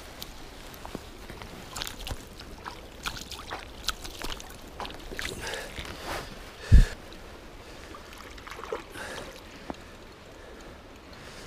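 Mountain river running, with scattered small clicks and knocks and one loud low thump about seven seconds in.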